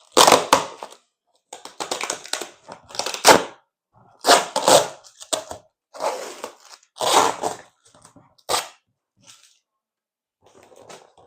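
Parcel packaging being ripped open: a series of loud rips and crackles, about eight in all, then quieter rustling near the end.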